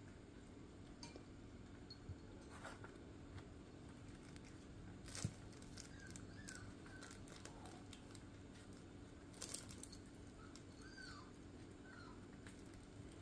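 Near silence over a steady low hum, broken by a few small scratches and clicks, the loudest about five seconds in and another about nine and a half seconds in: a kitten's paws and claws on a wooden board and scraps of paper.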